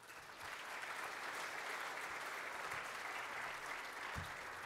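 Audience applauding steadily, with a single low thump about four seconds in.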